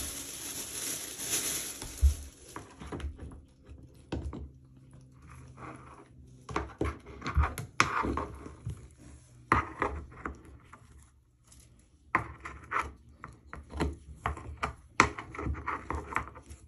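Scraping and clicking of a drain-cleaning strip being worked into a bathtub drain to hook out a hair clog, in short irregular bursts. A steady hiss fills the first three seconds.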